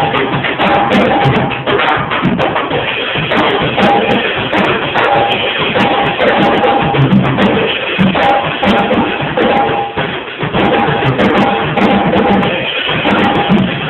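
A drum kit being played in a steady, continuous groove, with pitched notes of other instruments sounding along with it.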